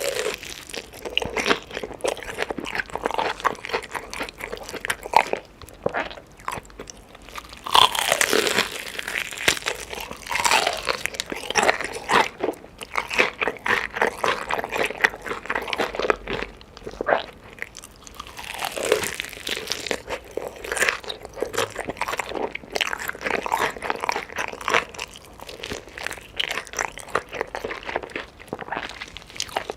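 Chicken being bitten and chewed, with dense, continual crunching.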